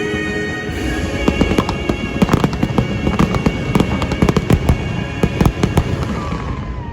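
Fireworks finale: a rapid, dense barrage of bangs and crackles over the show's music.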